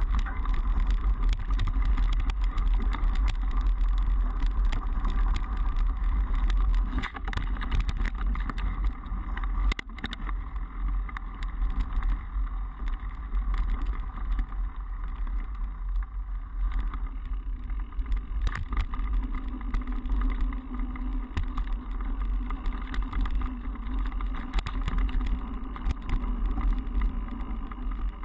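Mountain bike ridden along a dirt cross-country trail, heard through a bike-mounted action camera: a steady low rumble of tyres and riding with frequent knocks and rattles from bumps in the trail.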